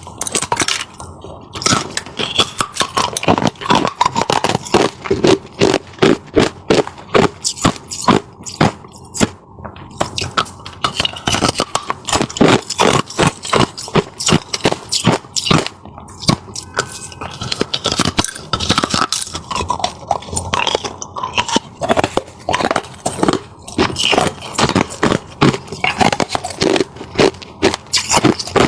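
Brittle frozen ice crust being crunched and scraped: a dense, irregular run of crisp crackling snaps.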